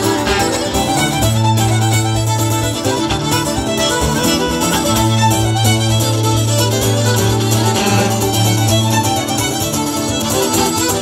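Live Irish traditional music: fiddle, accordion and acoustic guitar playing a tune together, amplified through a stage PA.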